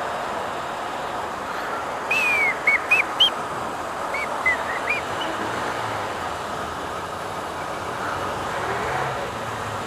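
Steady hum and hiss of a petrol station fuel dispenser pumping slowly, with a run of short, high chirps between about two and five seconds in.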